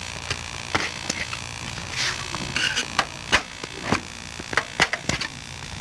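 Screwdriver levering a bicycle tire and inner tube off the metal rim: irregular sharp clicks and knocks, with a short scrape and a brief squeak about two and a half seconds in, over a steady low hum.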